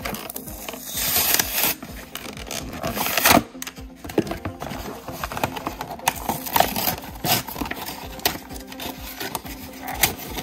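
Plastic blister packaging and a cardboard backing card being pulled apart and handled by hand: irregular crinkling and crackling rustles, the loudest burst about three seconds in.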